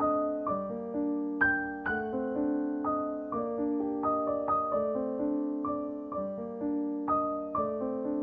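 Background piano music: a gentle melody of single notes and chords, struck about twice a second and each fading away.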